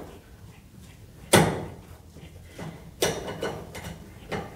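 Metal knocks and clunks as the fuel filler neck is worked into its opening in the car's sheet-metal quarter panel. There is one loud, sharp knock a little over a second in, then a few lighter knocks about three seconds in and again near the end.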